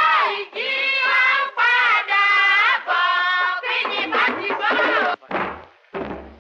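A woman singing in Yoruba folk-opera style, her high voice held on long, wavering notes. About four seconds in it gives way to shorter, lower, choppier vocal phrases.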